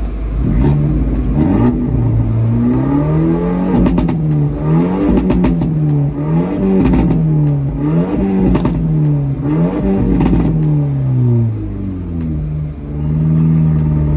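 Abarth 124 Spider's turbocharged 1.4 four-cylinder, through a de-catted sports exhaust with its valves wired open, revving up and dropping back again and again as it accelerates through the gears. Bursts of sharp pops and crackles come on the lift-offs in the middle of the stretch, from a tune set up to give overrun pops and bangs.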